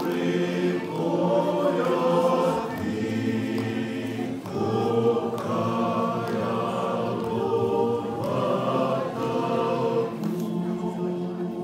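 A group of voices singing together unaccompanied, in long held phrases, with a short break about four and a half seconds in.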